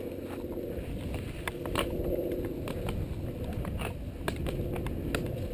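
Full-suspension mountain bike rolling over a dry gravel fire road: steady tyre rumble with scattered sharp clicks and rattles from stones and the bike, loudest about two seconds in.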